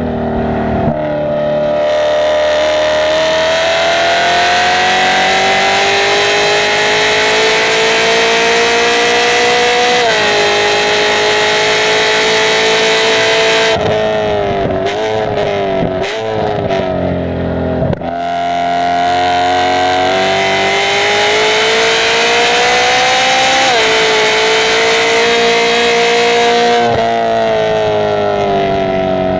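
Onboard engine sound of a car lapping a race track. The engine pulls up through the revs with a small upshift about ten seconds in. Around the middle it lifts off and blips through quick downshifts for a corner. It then pulls hard again with another upshift before easing off near the end.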